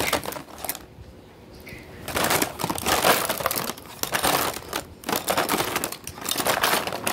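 Crinkling and rustling of makeup items and packaging being handled and rummaged through, in irregular bouts with small clicks.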